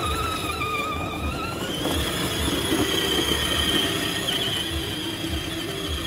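Electric whine from a children's ride-on quad bike's motors and gearboxes as it drives. The pitch rises about two seconds in and drops again near the end.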